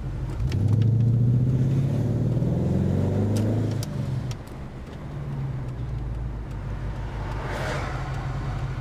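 Holden 308 (5.0 L) V8 in a Series 2 Jaguar accelerating hard, its note rising steadily in pitch for about three seconds, then falling back as the throttle comes off and settling into a steady, lower run.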